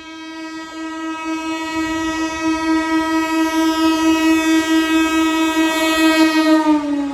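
Electric multiple unit (EMU) train's horn sounding one long, steady blast as the train approaches, growing louder. Its pitch drops near the end as the train passes. The train's running rumble sits underneath.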